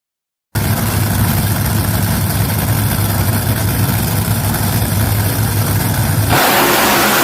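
Slingshot dragster engine idling loud and steady with a deep, even rumble. About six seconds in, the low rumble drops away and a louder, hissing rush takes over.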